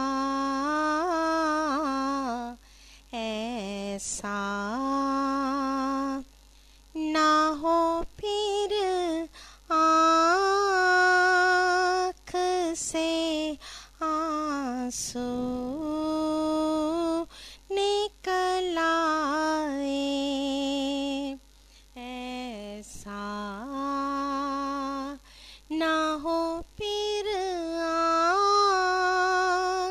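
A woman singing an Urdu naat unaccompanied. Her held notes bend and waver in pitch, and short silent pauses fall between the phrases.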